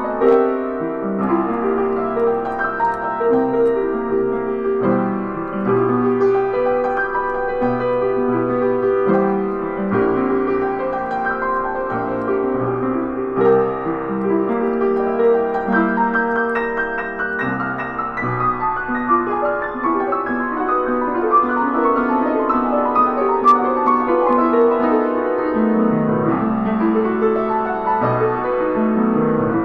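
Kawai upright piano being played, a continuous flowing passage of many notes. Over the second half there are long runs of notes stepping downward.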